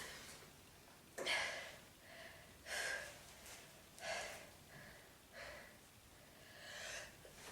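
A woman's short, breathy intakes of breath, about five of them roughly a second and a half apart, between sneezes in a sneezing fit.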